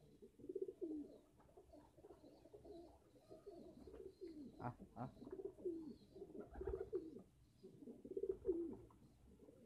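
Several domestic pigeons cooing, their short falling coos overlapping one another throughout. A low thump about two-thirds through.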